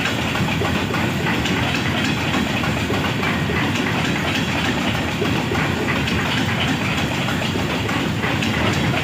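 A freight train's wagons rolling past at speed, a steady rumble with the clatter of wheels over the rail joints.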